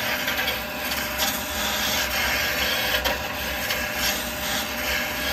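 Wood lathe running while a turning chisel shaves a spinning wooden spindle, a continuous rasping hiss of the cut over the steady hum of the lathe.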